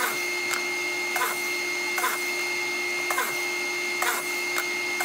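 Kreg Foreman pocket-hole machine running steadily while drilling pocket holes into a Baltic birch board, with a short rasp repeating once or twice a second over a steady whine.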